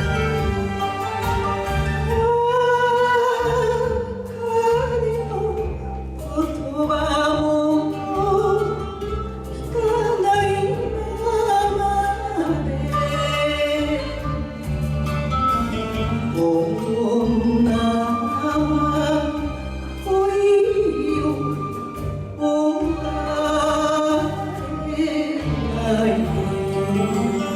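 A woman singing an enka ballad with vibrato over a karaoke backing track.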